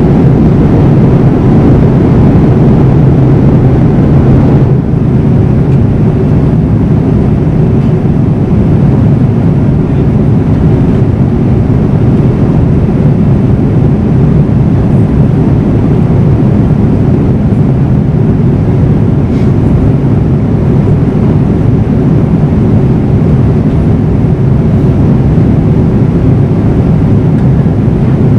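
Steady cabin roar of a Boeing 787-9 flying at altitude, heard from a window seat beside the engine: a deep, even rush of air and engine noise. It drops slightly in level about five seconds in.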